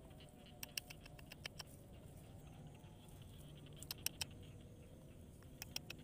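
Faint sharp clicks and light taps in small clusters of two or three, coming every second or two, from a hand working a baited eel-fishing line at a hole in wet paddy mud.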